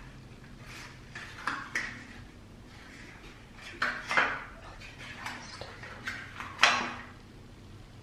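Small stainless-steel parts of a reusable coffee capsule set clinking and tapping as they are worked out of a cardboard insert, with light handling of the cardboard. There are a few separate taps, the sharpest about two-thirds of the way through.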